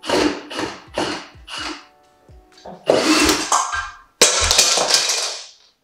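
Cordless drill run in short bursts: four quick pulses about half a second apart, then a longer run, then another longer run that starts suddenly about four seconds in. Background music plays underneath.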